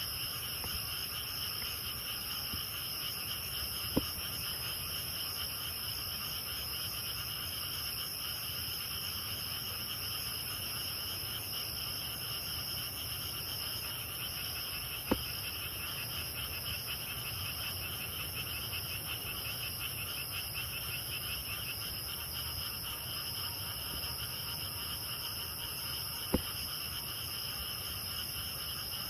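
Night chorus of frogs and grass insects: continuous pulsing frog trills mixed with steady high-pitched insect song. Three brief clicks stand out, about 4, 15 and 26 seconds in.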